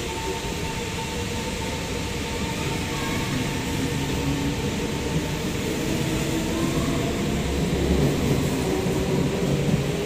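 SMRT C151 metro train pulling out along the platform and picking up speed: a steady rumble of wheels on rail, with a motor whine that rises slowly in pitch.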